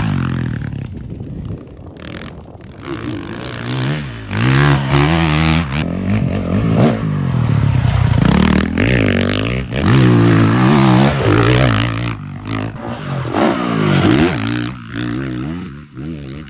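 Dirt bike engines revving hard and easing off, again and again, their pitch rising and falling as the throttle opens and closes. The sound grows loud and fades several times as bikes ride the dirt track.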